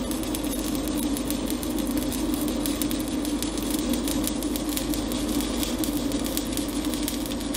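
Stick-welding arc on a steel pipe joint, crackling and sputtering steadily as a manual electrode burns, with a steady low hum underneath.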